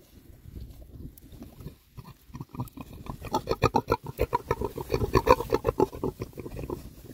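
Oxford Sandy and Black sow grunting and snuffling close up. A fast run of short grunts, several a second, starts about two and a half seconds in and eases off near the end.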